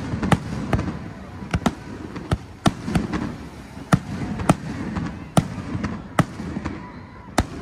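Aerial fireworks shells bursting in quick, irregular succession: about a dozen sharp bangs, with a low rumble carrying on between them.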